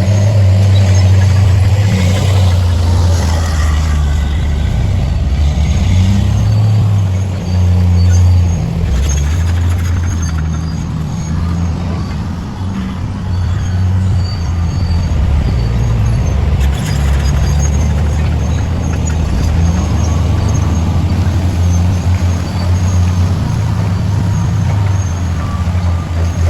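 Heavy diesel engine running steadily under load, a deep drone that rises and dips slightly in pitch, with faint high squeals now and then.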